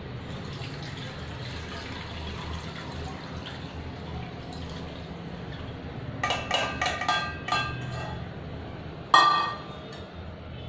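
Whey being poured through a stainless-steel mesh strainer into a steel pot, a steady pouring for the first several seconds. About six seconds in comes a run of ringing metallic clinks as the strainer knocks against the steel vessels, then one loud ringing clank a little after nine seconds.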